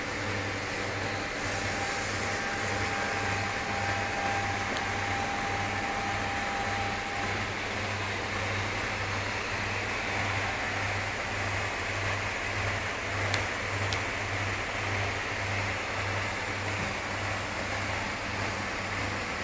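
Machinery running steadily: a fan-like hum with a low throb pulsing about twice a second, and a faint held whine in the first few seconds. Two small clicks come about two-thirds of the way through.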